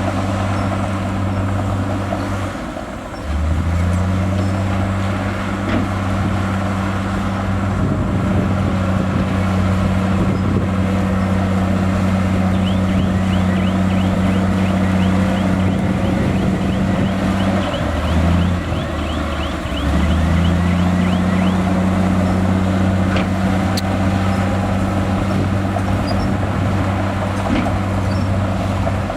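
Heavy diesel engine of earthmoving machinery running steadily under load, its note dropping briefly about three seconds in and again around eighteen to twenty seconds. A rapid series of faint high clicks runs through the middle.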